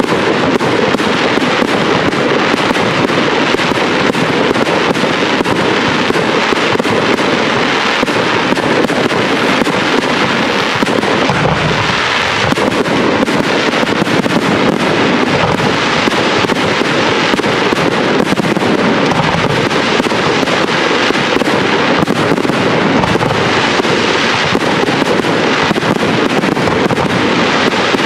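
Professional aerial fireworks display: a dense, unbroken barrage of shell bursts and rapid crackling, many reports overlapping with no pause.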